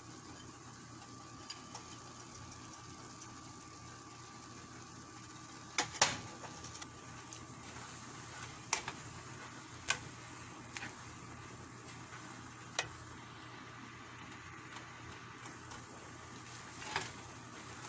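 A cooking spatula knocking and scraping against a nonstick frying pan while noodles are tossed: a few sharp taps, the loudest about six seconds in, over a faint steady hiss and hum.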